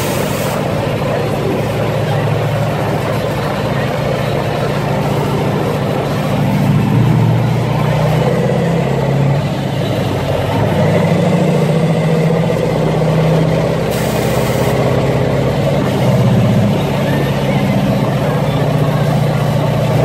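Big truck's engine heard from inside the cab while driving, running steadily, its pitch rising and falling a few times as it pulls and eases off. A brief hiss comes about two-thirds of the way in.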